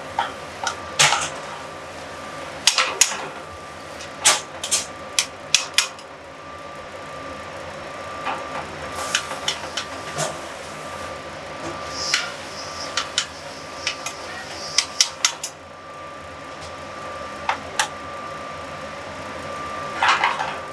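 Metal utensil clinking and scraping against a sauté pan as creamed spinach is stirred on the stove: irregular bunches of sharp clicks, over a steady fan hum and a faint steady high tone.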